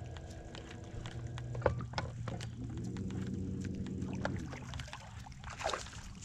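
Minn Kota electric trolling motor humming steadily. A higher whine rises in about two and a half seconds in, holds, and winds down about two seconds later. Light clicks and knocks run through, with a short louder rush of noise near the end.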